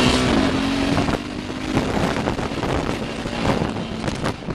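ATV engine running while it drives fast over rough pasture; the engine note drops away about a second in. Many short knocks and rattles run through the steady driving noise.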